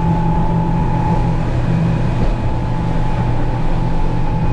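Boat motor running steadily, a constant low drone with a steady high whine over it.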